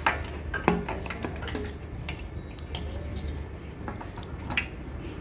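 Irregular light metallic clicks and clinks, about seven, from handling a motorcycle fuel-gauge sender unit (float and rheostat) as it is worked out of the fuel tank opening. The loudest clicks come at the very start and just under a second in.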